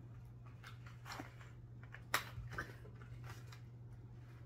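Faint handling of a slit-open cardboard box: a few short scrapes and sharp clicks as fingers pry at its open end, over a steady low hum.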